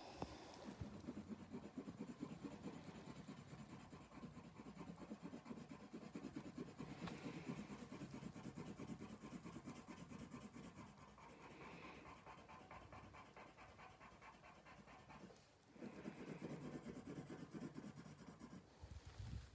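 Coloured pencil shading on paper in quick back-and-forth strokes, faint and steady, with a short pause about three-quarters of the way through before the scratching starts again.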